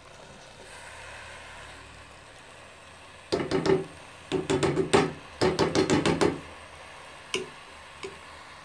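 Metal spoon knocking against the side of a metal cooking pot while stirring a thick mash. The knocks come in three quick runs of about a second each, starting about three seconds in, followed by two single knocks near the end.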